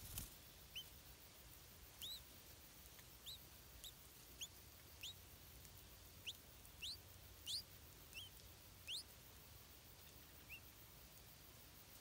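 Stripe-throated bulbul nestling begging: about a dozen faint, thin, high squeaks, each a quick upward-sweeping note, at irregular intervals while the parent arrives to feed it.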